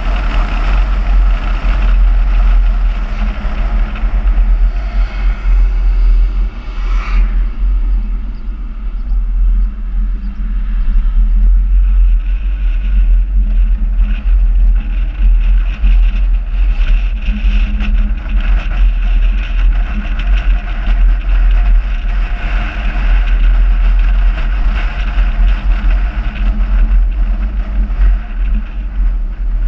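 Smart car driving along a country road: steady engine and tyre noise under a heavy low wind rumble on the exterior camera's microphone. A brief whoosh about seven seconds in.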